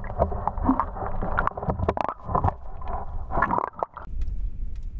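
Water sloshing and gurgling around a submerged camera as a smallmouth bass is let go by hand, with many small irregular knocks. About four seconds in it gives way to a steadier low rumble.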